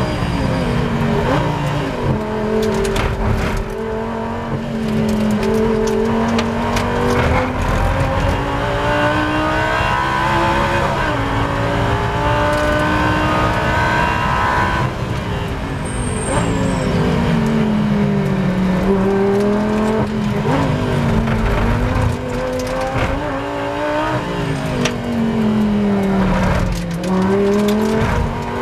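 In-car sound of a Lamborghini Gallardo Super Trofeo race car's V10 engine at race pace. The engine note climbs through the gears under acceleration, then drops in steps with downshifts under braking, and the gearshifts give sharp cracks.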